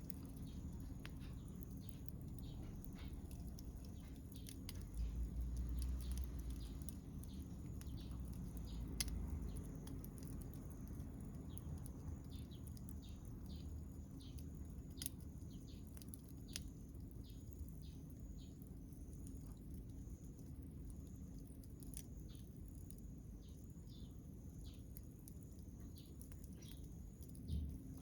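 Wood fire crackling, with irregular sharp pops and snaps over a low rumble.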